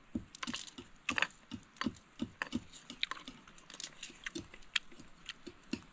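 A person chewing a mouthful of fish close to the microphone: irregular wet mouth clicks and smacks, several a second.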